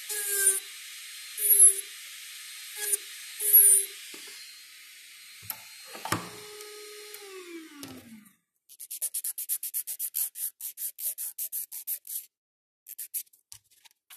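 Electric nail drill grinding the underside of an acrylic-gel nail in about four short passes a second or so apart over the motor's steady whine, the refining stage of a dual-form nail build. Near eight seconds the motor's pitch slides down as it spins down, and a fast run of short scratchy strokes follows.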